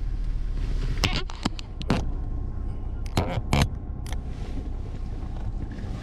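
Steady low rumble, with a handful of sharp clicks or knocks about one to four seconds in.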